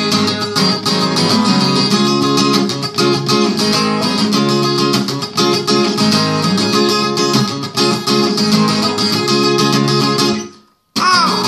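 Acoustic guitar strummed in an instrumental break between sung lines, a steady run of chord strokes. The sound cuts out briefly near the end.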